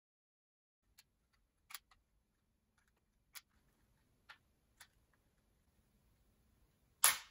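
Faint scattered plastic clicks as hands work at the Tesla desktop supercharger model. Near the end comes one loud, sharp snap as its bottom piece is forced off.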